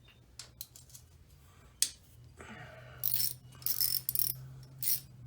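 Socket ratchet clicking as M8 bolts on the ATV engine case are loosened: a few separate clicks and knocks, then a dense run of rapid ratcheting about three seconds in and a short burst near the end.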